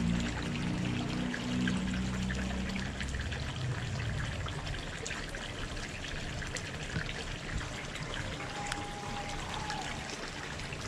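Steady trickling and splashing of water into a small lined fish pond from a PVC pipe outlet, with rain dotting the water surface.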